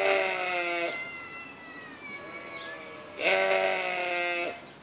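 Sheep bleating: two long, loud bleats about three seconds apart, with a fainter call between them.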